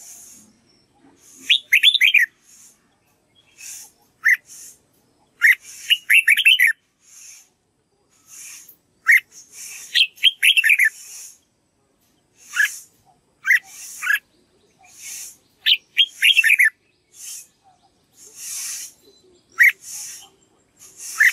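Red-whiskered bulbul singing: short phrases of three or four quick falling whistled notes, repeated every second or two, with single clear notes in between.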